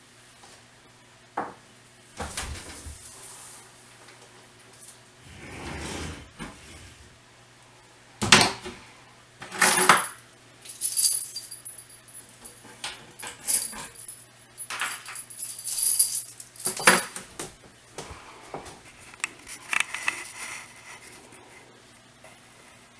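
Sliding glass doors of a reptile enclosure being moved and rattled in their track: a series of irregular clacks, knocks and scrapes with bright metallic rattles, busiest in the middle of the stretch, over a faint steady hum.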